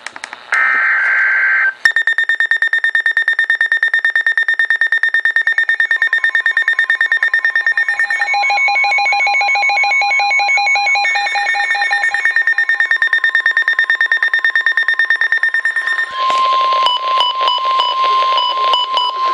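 NOAA Weather Radio alert: the last burst of the SAME digital header's two-tone warble, then the Midland WR-100 and Eton ZoneGuard weather radios' electronic alarms beeping rapidly, with a second, lower beeping alarm joining for a few seconds in the middle. About two-thirds of the way through, the alarms give way to the steady 1050 Hz National Weather Service warning alert tone, which signals that a warning message follows.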